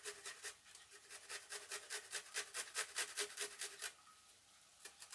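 Quick, even scraping strokes of a kitchen utensil working in a pot or pan, about five a second, stopping about four seconds in, followed by a couple of faint clicks.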